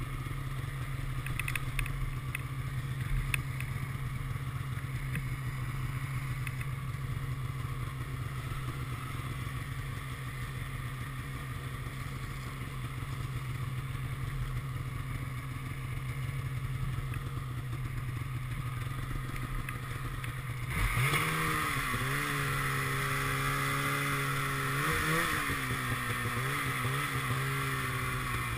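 Polaris snowmobile engine running at a steady low drone while the sled travels through snow. About two-thirds of the way through, the throttle opens and the engine gets louder, its pitch rising and wavering up and down.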